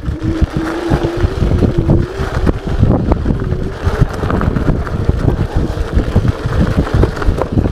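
A 500 W, 48 V electric scooter riding over a rough gravel track. Wind buffets the action camera's unprotected microphone, the tyres and frame rattle and knock over the stones, and a steady, slightly wavering whine comes from the scooter's motor.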